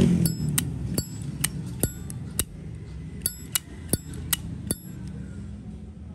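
Brushed-chrome Zippo lighter's lid repeatedly flipped open and snapped shut: a run of about a dozen sharp metallic clicks with a bright ring, stopping about five seconds in. The lighter has been adjusted for a crisp open-and-close sound.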